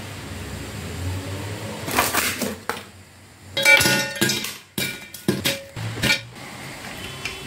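Ice cubes dropped into an empty glass pitcher: a series of sharp clinks with short glassy ringing, the loudest cluster about halfway through.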